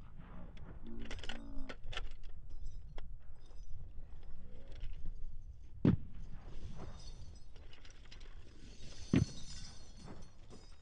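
Two single gunshots on a firing range, about three seconds apart, each echoing briefly. Between them come the light clicking and rattling of weapons and gear being handled.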